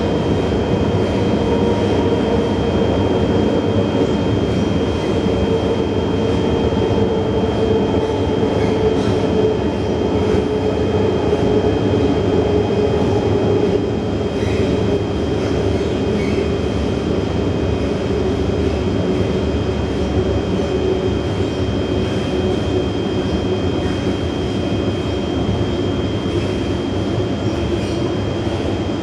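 Inside an MRT metro carriage running along the track: a steady rumble of wheels and running gear, with constant tones ringing through it.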